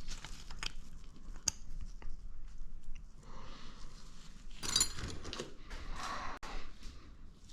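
Light clicks and scrapes of metal engine parts being handled as the camshaft and timing chain of a Honda TRX400EX top end are fitted, with a brief louder rattle of metal about five seconds in.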